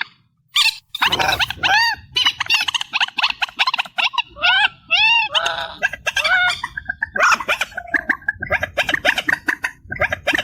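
Boosted recording of trích ré rails calling: a dense run of sharp, arched call notes repeated over and over, several birds overlapping. A low rumble sits under the calls about a second in and again near the end.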